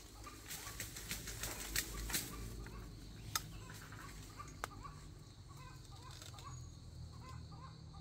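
Rustling with a run of sharp crackling clicks over the first few seconds, then chickens clucking softly in short calls.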